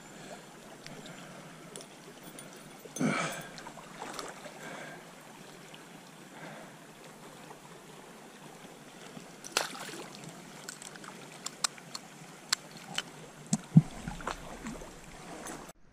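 Small stream water running steadily. There is a brief rush of noise about three seconds in, then a string of sharp clicks and knocks in the second half, the loudest near the end.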